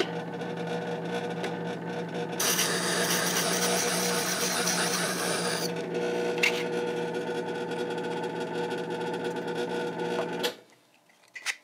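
Powered sharpening hone running with a steady hum while a small carbide graver is ground on its 1200-grit diamond disk, a hissing scrape lasting about three seconds, from roughly two seconds in. The motor hum then runs on alone and cuts off suddenly near the end.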